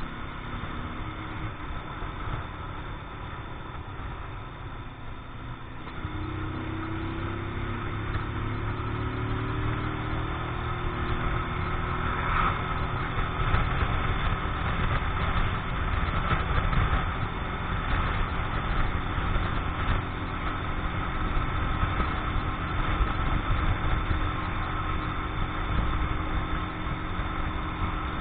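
Keeway X-Light 125 motorcycle engine running on the move, being run in, with wind noise on the microphone. About six seconds in, the engine note rises as the bike speeds up, then holds steady at cruising speed.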